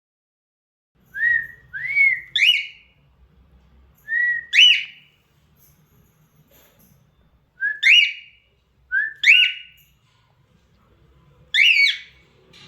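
Cockatiel contact calls: short, loud whistled chirps, each sweeping sharply upward, given in quick pairs or threes about five times with pauses between.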